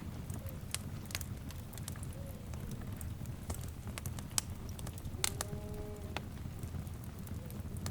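Wood fire crackling, with irregular sharp pops and snaps over a low rumble of flames. A brief pitched sound with several tones, about a second long, comes a little past halfway.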